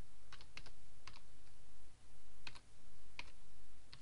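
Typing on a computer keyboard: about eight separate keystrokes at a slow, uneven pace, over a low steady hum.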